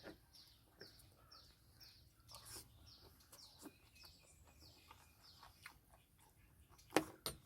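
A bird calling in a quick series of short falling chirps, about two a second, that stops about four and a half seconds in. Two sharp knocks come close together near the end, the loudest sounds here.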